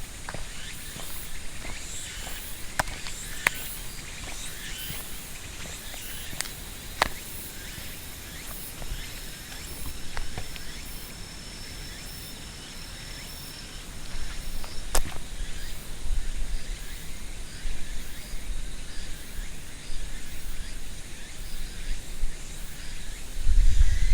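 Outdoor park ambience: a steady background hiss with a few sharp clicks, and a low rumble on the microphone that grows louder from about halfway.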